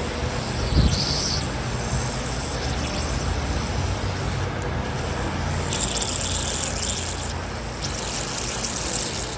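Aerosol parts cleaner hissing in bursts onto an engine's sticking oil-fed solenoid to dissolve varnish: a short burst with a knock about a second in, then two longer bursts in the second half, over a steady low hum.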